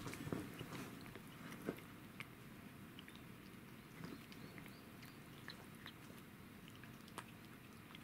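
A cat gnawing on a dry deer bone: faint, scattered clicks and crunches of teeth on bone, thinning out after about two seconds.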